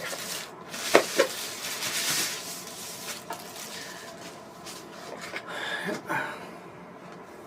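Packaging being handled as a speaker is taken out of its box: two sharp knocks about a second in, then rustling and rubbing of wrapping and foam.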